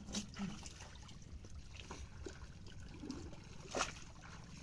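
Wet mud squelching and slapping as hands grope and scoop through it for fish in a drained pond, with scattered soft splashes, the loudest a little before the end.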